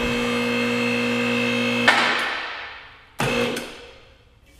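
Small electric driver running steadily on a stuck bolt for about two seconds, then stopping, with a short second burst a little later. It is not strong enough to break the bolt loose.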